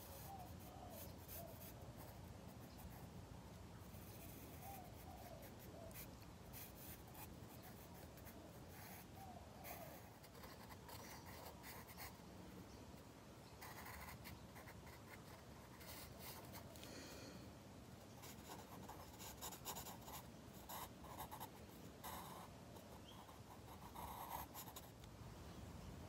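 Pencil scratching on paper in faint, irregular strokes as it shades and outlines a drawing, with a few louder clusters of strokes in the second half.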